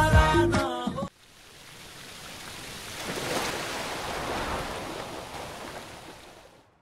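A song with singing plays for about a second and cuts off suddenly. Then a rush of water, like a waterfall, fades in, swells and fades away.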